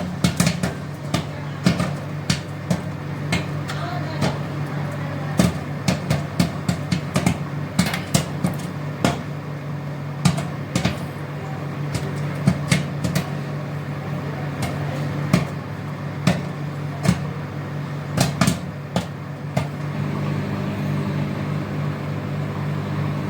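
Microwave oven humming steadily while popcorn kernels pop inside it: sharp, irregular pops, several a second through the middle, thinning out toward the end as the batch finishes.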